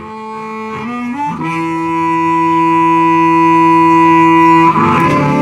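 Live blues band: a sustained chord swells in, climbing in steps over the first second and a half, then holds steady until the full band kicks into the groove near the end.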